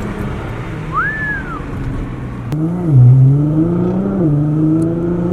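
Nissan GT-R R35's twin-turbo V6 exhaust during a light pull: the engine pitch dips about three seconds in, climbs again and eases off near the end. A short whistle rises and falls about a second in.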